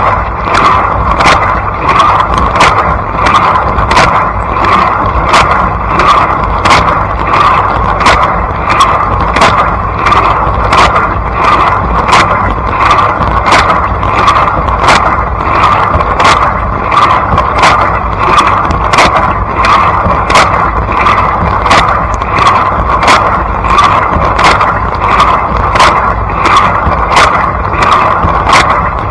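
Blanco dishwasher running its wash cycle, heard from inside the tub: a loud, steady rush of spraying water with a regular sharp tick about twice a second.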